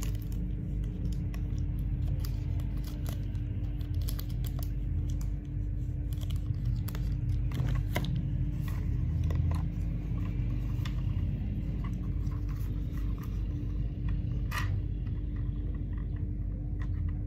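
Scattered small clicks and rustles of hands handling a film canister and loading the film into a film camera, over a steady low hum.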